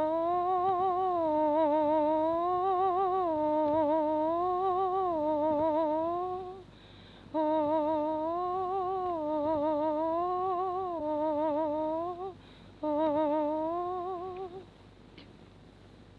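A woman humming a lullaby tune without words, with a wide vibrato, in three phrases with short breaks between them, the last one short. The voice is on a 1939 field recording.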